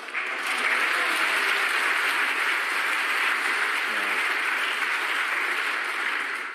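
Snooker audience applauding a well-judged safety shot that left the cue ball tight against a red on the cushion. The clapping starts suddenly, holds steady, and begins to die away near the end.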